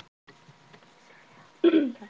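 Faint webcam room hiss, then near the end one short, loud sound from a girl's voice, a brief hiccup-like utterance rather than words.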